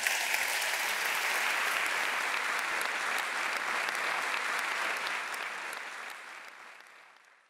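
Audience applauding steadily, the clapping fading out over the last couple of seconds.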